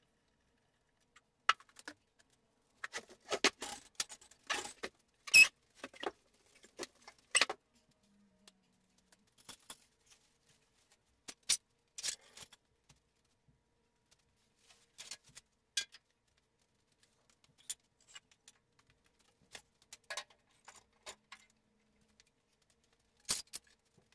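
Scattered clinks and knocks from hands-on work with tools, screws and wooden blocks, busiest in the first several seconds, with the sharpest knock about five seconds in.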